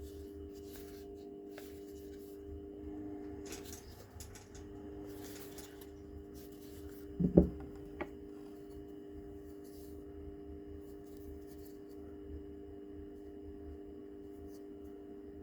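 A steady low electrical-sounding hum, with one sharp knock a little before halfway and a lighter click just after it.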